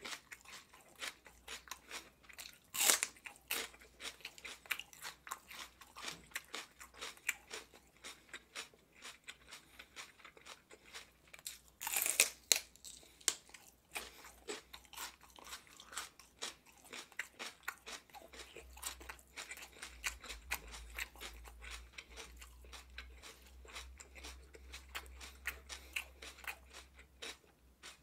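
Raw celery stalk bitten off with a loud crisp snap about three seconds in and again about twelve seconds in, and chewed between with steady crunching.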